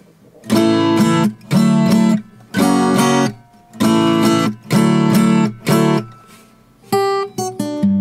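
Baton Rouge X11S parlor acoustic guitar, with a solid spruce top and mahogany back and sides, played with a capo: short bursts of strummed chords with brief pauses between them, then a few single picked notes near the end.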